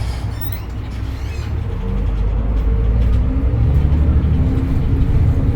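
Edison Motors Smart 110G city bus heard from inside near the front: its CNG engine and drivetrain run under steady road noise. The sound grows louder about two seconds in, and the low engine tones edge upward as the bus picks up speed.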